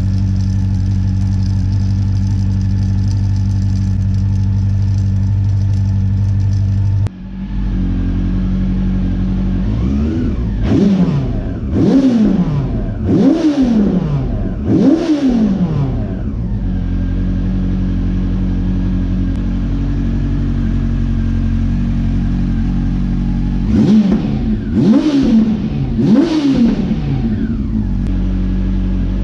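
2009 Honda CB400's inline-four engine idling steadily, blipped on the throttle in quick rise-and-fall revs, four about ten seconds in and three more near the end. It runs smoothly on all four cylinders.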